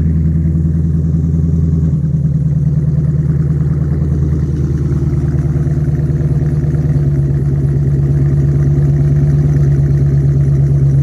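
Chrysler 300C SRT8's 6.1-litre Hemi V8 idling steadily just after a cold start. The idle speed eases down slightly about seven seconds in as the engine warms.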